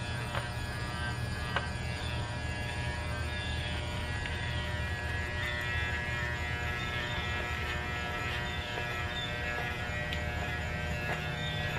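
Electric hair clippers buzzing steadily while shaving a small dog's coat, with a couple of faint clicks about half a second and a second and a half in.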